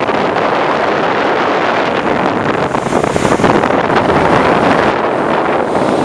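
Wind buffeting the microphone of a speedboat under way, over the rush of water and the boat's motor, steady throughout.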